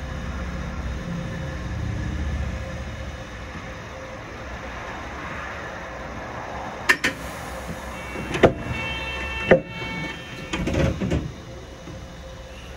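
Toyohashi Railway Azumada Line tram heard from on board: a low running rumble for the first few seconds that then eases, followed by a few sharp clacks and a short tone, typical of a tram halting with its doors working.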